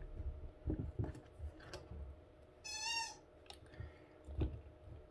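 Soft knocks and clicks of small things being handled, and about three seconds in a single short, wavering meow from a house cat.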